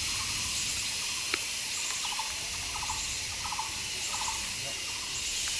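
Steady high-pitched insect drone with a bird's short chattering calls, each a quick run of three or four notes, repeating about once or twice a second from about a second and a half in. A single sharp snap about a second in.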